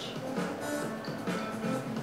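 Quiet background music with a light, even pulse of short notes.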